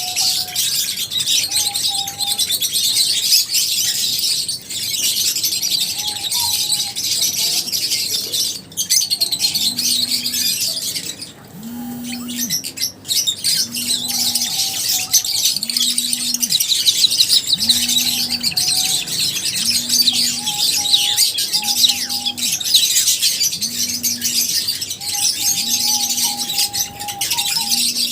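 A colony of lovebirds chirping and chattering, with many shrill calls overlapping without pause. From about ten seconds in, a low tone pulses underneath about every two seconds.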